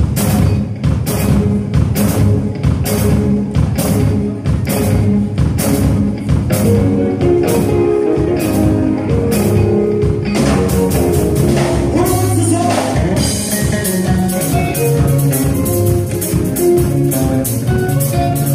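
Live gospel band music at a loud level: a drum kit keeping a steady beat under bass and keyboard lines.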